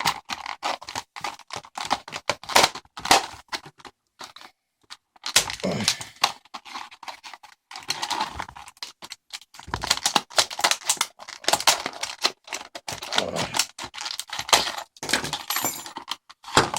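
A padlock's retail packaging being torn open: stiff plastic crackling and cracking in irregular bursts, with a couple of short pauses.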